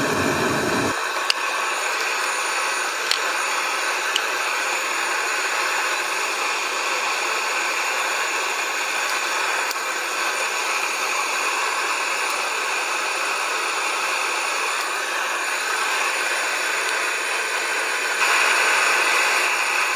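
Homemade propane forge burner running with a steady hiss while a railroad spike heats inside. A few faint ticks sound in the first few seconds, and the hiss grows slightly louder near the end.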